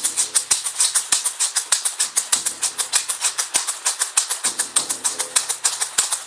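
Rawhide frame drum and large standing drum beaten together with padded beaters in a fast, steady beat of about five strokes a second.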